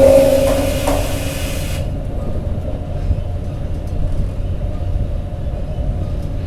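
Heavy truck running with a low steady rumble, with a loud high squeal that fades out about a second in.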